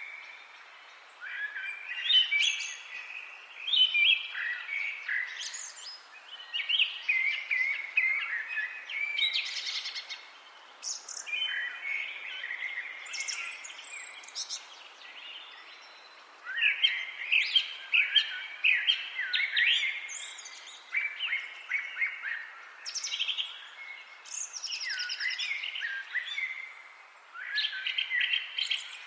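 European woodland songbirds singing, several birds in overlapping phrases of a few seconds each with short pauses between them, over a soft steady background hiss.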